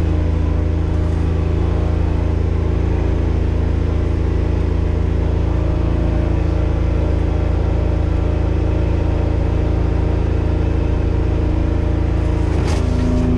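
Engine of a Kubota RTV utility vehicle on tracks, running at a steady pitch under load as it drives through deep snow. Heard from inside the vehicle's closed cab.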